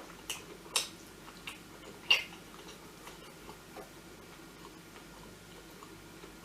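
Close-up eating sounds: a few sharp clicks and crunches in the first two seconds, the loudest a little after two seconds in, then faint mouth clicks of chewing.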